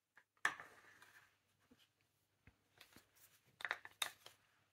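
Small plastic paint pots and a wooden craft stick being handled: a sharp knock about half a second in, then light clicks and scrapes near the end as the pot is lifted and the stick worked in the paint.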